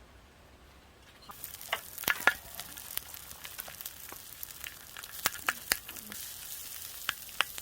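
Food frying in a hot pan: a sizzle starts suddenly about a second in, with oil spattering and popping throughout.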